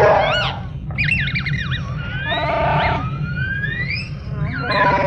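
R2-D2 droid beeping and whistling: warbling chirps, quick pitch wobbles and long rising whistles, broken by buzzy squawks about two and a half seconds in and again near the end.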